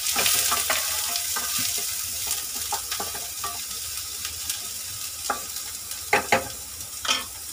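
Freshly added chopped onions sizzling in hot oil in a kadai while a wooden spatula stirs them, scraping and tapping on the pan. The sizzle is strongest at the start and eases a little, with a few sharper knocks of the spatula near the end.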